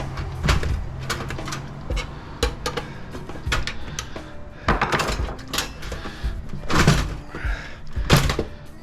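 Knocks, clicks and clunks of metal and plastic computer parts being handled while an old Dell desktop is taken apart. The loudest clunks come about five, seven and eight seconds in.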